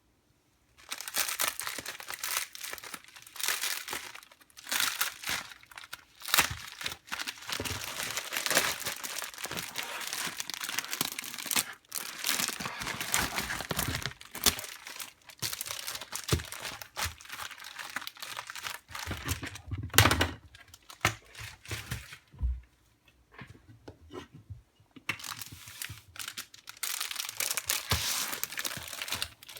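Packaging being unwrapped by hand: irregular crinkling and tearing, with a single thump a little after two-thirds of the way in and a short lull shortly after.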